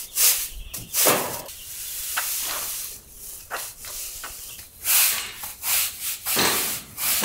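Push broom sweeping spilled grain feed across a concrete floor in a series of swishing, scraping strokes.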